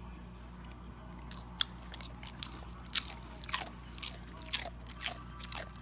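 A pit bull-type dog crunching tortilla chips in its mouth: about six sharp, irregular crunches, starting about a second and a half in.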